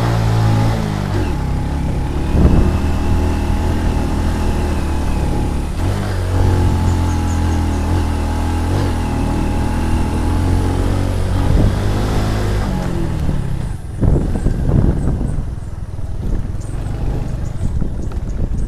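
Motor scooter engine running while being ridden, its pitch dropping about a second in and climbing again around the middle with the throttle, with wind over the microphone. Near the end the engine note fades and knocks and rattles from riding over a rough dirt track take over.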